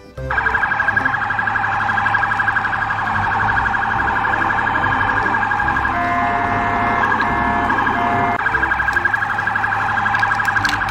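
Toy police car's electronic siren: a fast, steady warbling wail, interrupted about halfway through by a couple of seconds of short on-off beeps before the warble returns.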